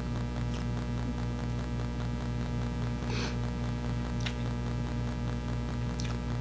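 Steady low electrical mains hum, with a few faint short clicks or scrapes scattered through it.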